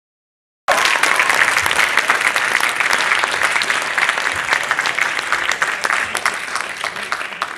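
Cinema audience applauding: dense clapping that starts suddenly under a second in and slowly thins and fades toward the end.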